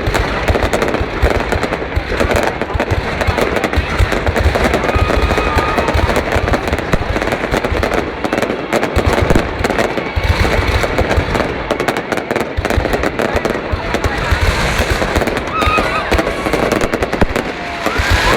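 Fireworks display going off continuously: a dense run of rapid crackling pops over deep booms, with voices of onlookers faintly underneath.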